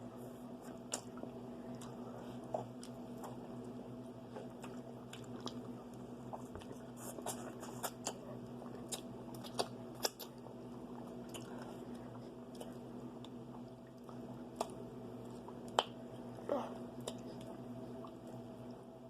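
Close-up eating of fried chicken: scattered crisp bites and chewing clicks at irregular intervals, over a steady low hum.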